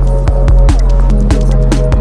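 Electronic music with a steady deep bass, fast clicking percussion and short falling electronic blips.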